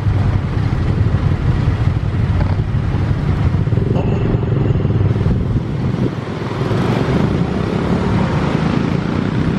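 Twin turbofan engines of the Indonesian presidential Boeing 737 at takeoff thrust as it climbs away: a loud, steady low rumble that eases slightly about six seconds in.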